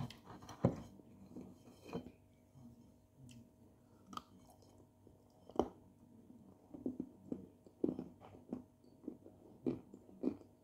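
Chunks of dry clay being bitten and chewed: irregular crisp crunches and crumbly chewing, with several louder crunches in the second half.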